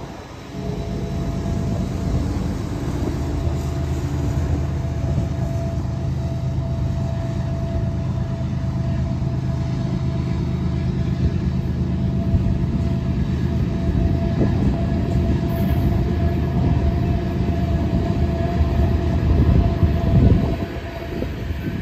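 Diesel locomotives of a BNSF coal train passing at close range, their engines running with a steady drone, followed by loaded coal hopper cars rolling by with wheel and rail rumble that grows louder near the end.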